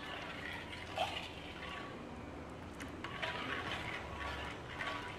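Steel spoon stirring hot sugar syrup in a steel kadhai, a wet swishing and scraping against the pan, with a short knock about a second in. The syrup has been taken off the heat and is being stirred until it thickens and turns grainy like sugar.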